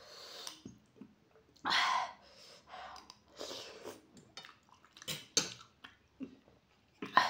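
Close-up sounds of instant ramen noodles being slurped and chewed, with a loud slurp about two seconds in, another soon after, and a few sharp clicks near the end.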